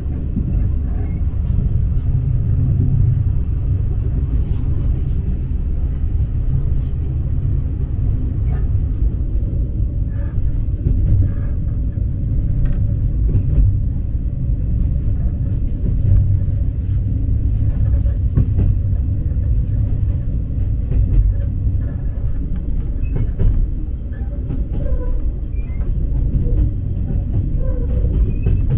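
Steady low rumble of a JR West KiHa 47 diesel railcar, heard from inside the passenger cabin while the train is running, with scattered light clicks over it.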